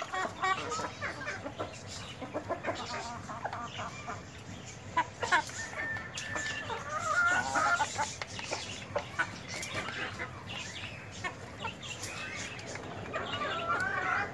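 Flock of desi chickens clucking while they feed, mixed with many short clicks. A few longer, higher calls stand out around the middle and again near the end.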